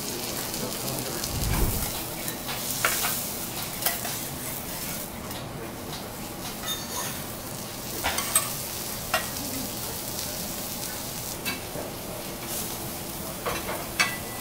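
Vegetables sizzling on a hot steel teppanyaki griddle, a steady hiss. Scattered sharp metallic clicks of a spoon, small steel pot and spatulas against the griddle, with one dull thump about a second and a half in.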